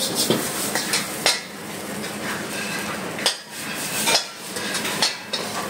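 Metal ladle scraping and clanging against a steel wok as rice is tossed and stirred, with sharp knocks about a second apart.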